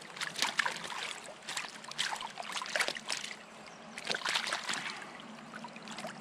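Water splashing in short, irregular bursts over the steady flow of a stream: a small hooked rainbow trout thrashing at the surface as it is brought in.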